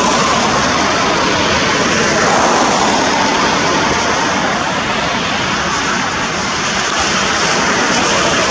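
Steady hiss of highway traffic on wet pavement: tyres throwing spray, an even loud wash of road noise that swells slightly a couple of seconds in.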